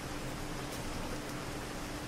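Steady city rain: an even hiss of rainfall on a street, with a faint low hum running underneath.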